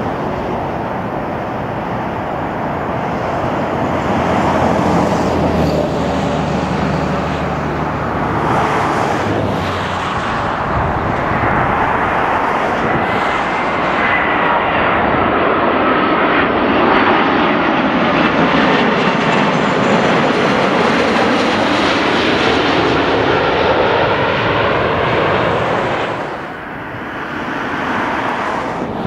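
Airbus A330-300 airliner with Rolls-Royce Trent 700 engines on final approach, its jet noise swelling as it comes in low and passing overhead near the middle, the engine whine sliding down in pitch as it goes by. The noise drops away sharply near the end.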